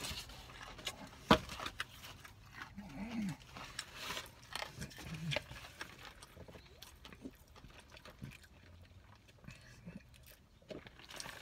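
Close-up eating and drinking sounds: sipping a fountain drink through a straw and chewing, with small clicks and rustles from handling the cardboard food box and paper cup. One sharp click about a second in is the loudest sound, and there are a few short low hums from the throat.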